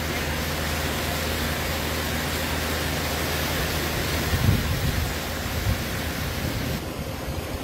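River in flood, its fast brown floodwater rushing past as a steady, even rushing hiss. There are a few low bumps about four and a half seconds in, and the hiss thins a little near the end.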